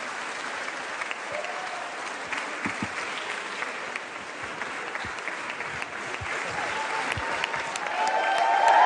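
A large crowd applauding steadily, many hands clapping at once. It swells louder near the end as voices join in.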